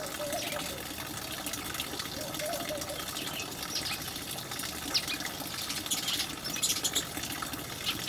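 House sparrows giving scattered short chirps over a steady rushing background noise.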